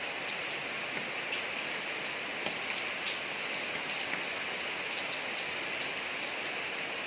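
Steady rain falling on a street: an even hiss with scattered single drops ticking close by.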